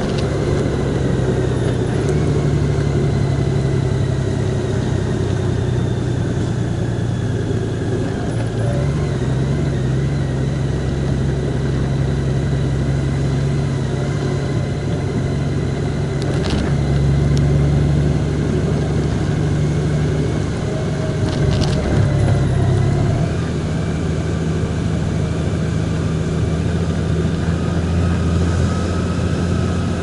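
A vehicle's engine running steadily under way, with road noise and a faint steady whine. The engine note shifts in pitch about a quarter of the way in and again about three quarters in, and a couple of brief clicks are heard in the middle.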